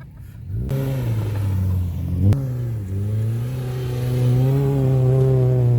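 A Subaru's engine revving and accelerating while driving on sand dunes. The pitch climbs, drops after a sharp knock a little over two seconds in, then climbs again and holds steady.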